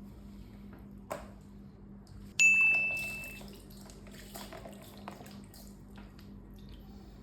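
A sharp, high ding that rings on one note for about a second and fades, about two and a half seconds in, among faint small clicks and handling sounds.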